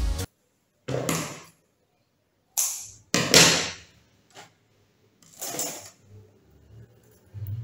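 Five short rustling, peeling sounds of a flexible self-adhesive mirror sheet being handled as thin strips are pulled off it.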